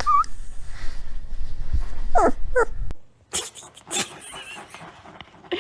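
A dog giving three short, pitched whines, then clicks and rustling from about three seconds in.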